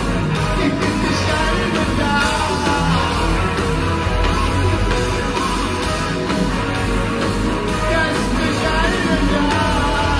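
Live heavy metal band playing: a male lead singer over electric guitar, bass and drums.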